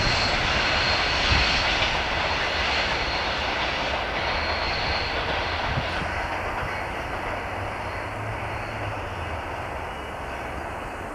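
Rumble and wheel-on-rail noise of a freight train's last wagons rolling away, fading steadily as the train recedes. The higher hiss drops away about six seconds in.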